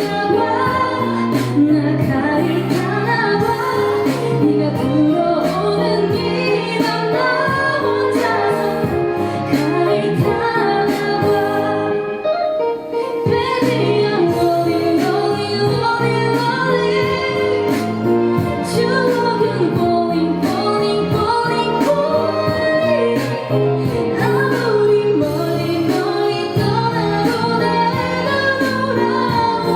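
A woman singing a Korean pop ballad live over instrumental accompaniment, the music easing briefly about twelve seconds in.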